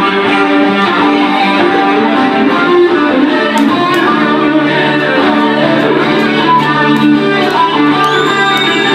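Two acoustic guitars playing an instrumental piece together live, without singing.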